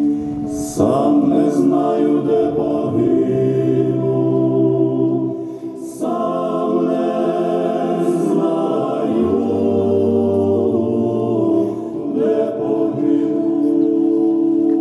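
Slow, mournful a cappella choral singing: voices hold long chords that shift every two or three seconds.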